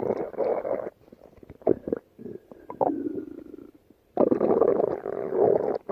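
Stomach growling: a long loud rumble that fades about a second in, a few short gurgles with a thin squeak in the middle, then a second long loud rumble starting about four seconds in.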